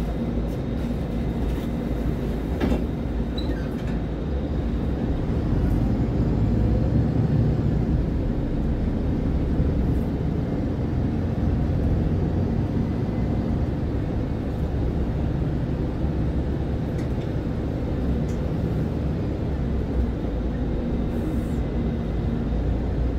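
MAN Lion's City Ü regional bus's diesel engine running with a steady low rumble, a little louder for several seconds in the middle.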